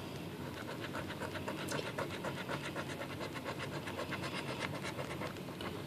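A coin scraping the coating off a scratch-off lottery ticket in quick, even back-and-forth strokes, several a second.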